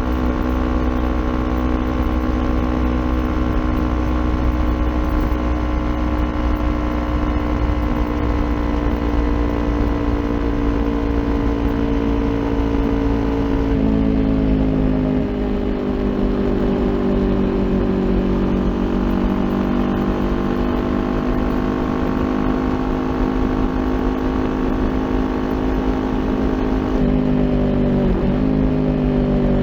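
Kawasaki Ninja 400's parallel-twin engine through an aftermarket Akrapovic exhaust, pulling steadily while riding, its pitch sagging slowly. About halfway through the pitch drops suddenly with an upshift, and near the end there is another gear change with a couple of quick dips in pitch.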